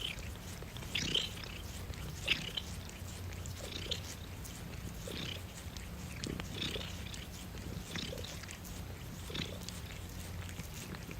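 Domestic cat purring steadily, with short breathy sounds repeating about once a second.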